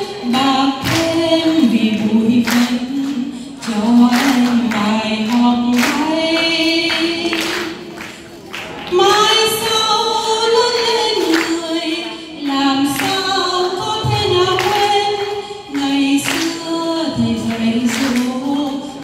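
A woman singing a Vietnamese song unaccompanied into a microphone, with long held notes and no instruments.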